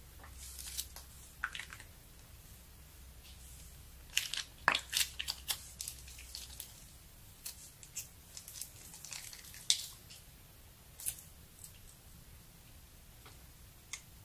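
Thin plastic piping bag crinkling in the hand as slime is squeezed out of it: scattered faint crackles and clicks, thickest about four to six seconds in.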